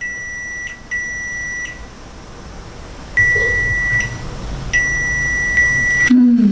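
Multimeter continuity buzzer beeping, a steady high tone sounding four times, two short and two longer, as the probes are touched across points on an LCD TV power board while checking for a short circuit.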